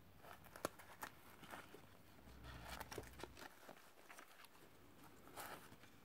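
Faint handling noise from a nylon pouch and its cardboard hang tags being turned in the hands: light rustles and small clicks, with a sharper click under a second in.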